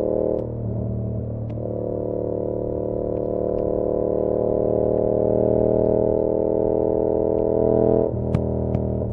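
Yamaha R7's parallel-twin engine, breathing through an SC-Project CR-T exhaust, pulling steadily under way with its note slowly rising. The note breaks up briefly just after the start and again near the end. A few sharp taps come from the backpack's straps hitting the bag.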